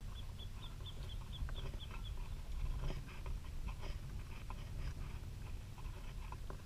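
Animal calls: a quick run of short high chirps, about four a second, for the first two seconds, then scattered calls, over a steady low rumble.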